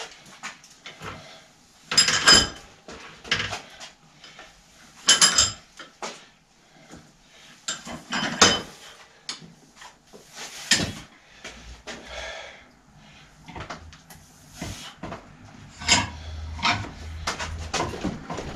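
Metal tools and bicycle parts clinking and clanking in irregular knocks while a bike in a repair stand is worked on by hand. The loudest strikes come about two and five seconds in and ring briefly.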